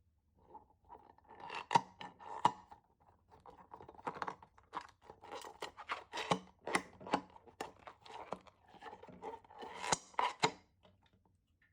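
Scissors cutting into a rubbery long balloon: a string of sharp snips and crinkling rustles, with the sharpest snips about two seconds in and again near the end.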